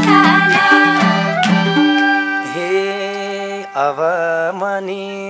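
Live Nepali dohori folk music: harmonium chords with madal drum strokes for about the first two seconds, then a long wavering melody line with vibrato carrying the rest.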